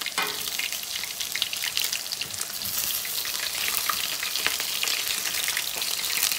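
Chicken pieces frying in hot oil in a pan: a steady sizzle full of small crackles and pops as the meat browns.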